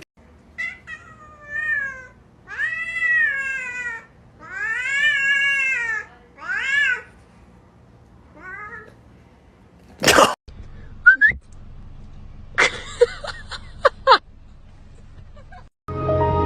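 Domestic cat meowing repeatedly: about six drawn-out calls that rise and fall in pitch, the third and fourth the longest. They are followed by a sharp knock about ten seconds in and some brief scuffling noises.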